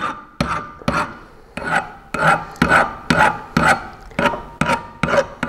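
Hand file being drawn in short, regular strokes, about two a second, across the electrode tip of a resistance spot-welding gun. The tip is being dressed back to a domed cap about 5 mm across because the electrodes widen with constant welding.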